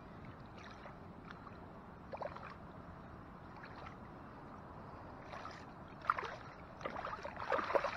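Water sloshing and splashing as a smallmouth bass is held and swished through shallow water by hand, with louder splashing in the last couple of seconds as the fish thrashes.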